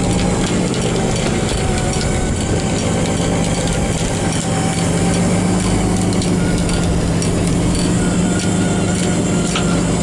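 A fishing boat's engine running steadily with a low hum, with a few scattered light clicks over it.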